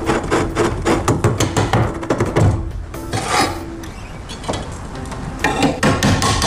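Metal clicks and scraping of a wrench and screwdriver working a rusty nut and bolt, over background music. The clicks come thick and fast in the first couple of seconds, ease off in the middle, and pick up again near the end.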